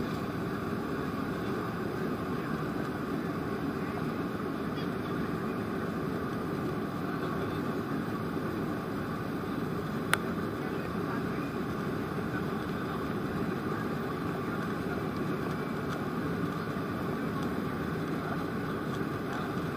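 Steady cabin noise of a Boeing 737's jet engines and rushing air, heard from inside the cabin during the climb after takeoff, with one sharp click about ten seconds in.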